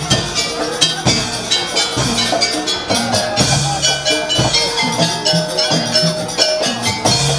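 Live jaranan accompaniment: drums and gong-like metal percussion keep a steady, driving beat under a sustained melodic line.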